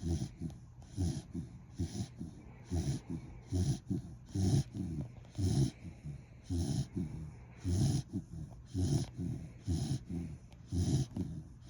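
A sleeping corgi snoring, one rasping breath about every second in a steady rhythm.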